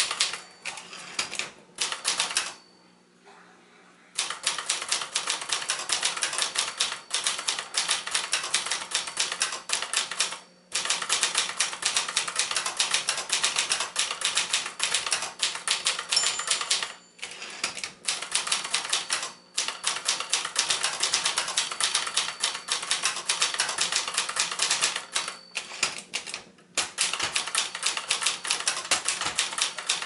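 Typing on a 1967 Signature 440T manual portable typewriter, built by Brother: fast runs of keystrokes with the typebars striking the platen, broken by brief pauses a few times.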